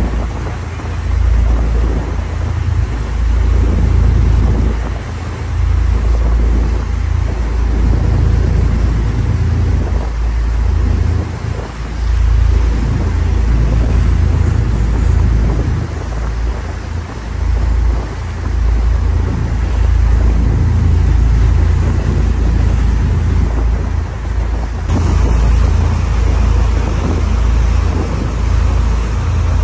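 A boat under way: a steady low rumble and rush of water, with wind buffeting the microphone in uneven gusts.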